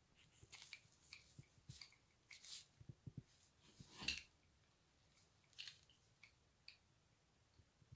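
Faint, irregular clicks, taps and short scrapes of doorknob hardware being handled and fitted, with the loudest knock about four seconds in.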